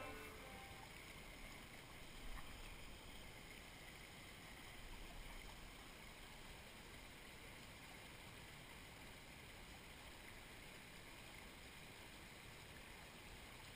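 Faint, steady rush of water from a small, shallow trout stream.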